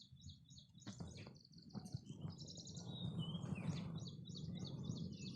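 Small birds chirping in quick, repeated high-pitched series, with a low rushing noise that swells through the second half.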